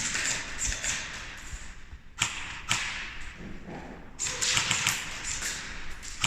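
Airsoft guns firing in close quarters: two single sharp shots a half second apart, then a quick run of several shots about four seconds in.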